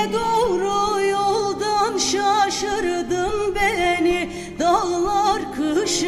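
A woman singing a long, heavily ornamented melismatic line of a Turkish folk song, her pitch wavering and trilling, over a plucked acoustic guitar accompaniment.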